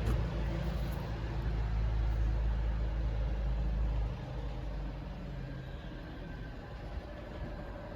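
A motor vehicle's engine running with a low rumble, which drops noticeably in level about four seconds in.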